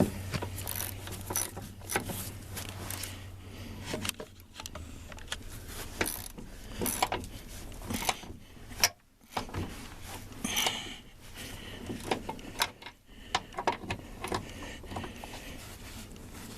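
Metal hand tools clicking and clinking against the door hinge of a 1995 Ford F-250, in irregular small knocks, with one sharp, loud knock about nine seconds in.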